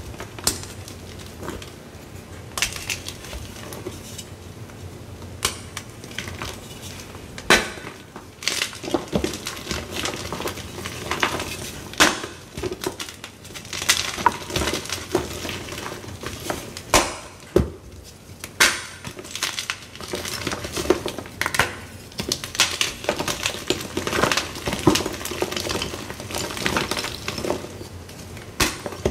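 Blocks of Z Athletic magnesium carbonate gym chalk crushed by hand: an irregular run of dry crunches and crumbling, with a few sharp, loud snaps as chunks break.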